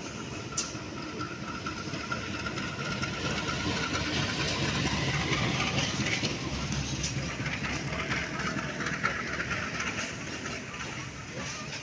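Diesel locomotive and its parcel-train cars passing close by, wheels rumbling and clattering over the rails with a few sharp clicks. A thin high squeal runs through the first few seconds, and the noise is loudest around the middle before easing off near the end.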